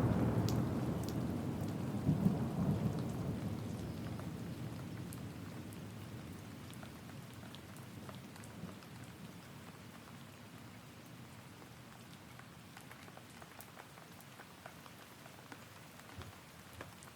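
Thunder rumbling with rain falling; the rumble swells again about two seconds in, then slowly dies away, leaving a faint hiss of rain with scattered drip ticks.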